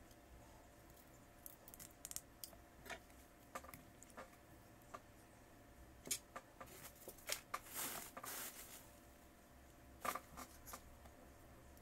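Small clicks, taps and scrapes of hand tools and parts being handled while working on a tablet during a screen replacement, with a longer scraping stretch about eight seconds in.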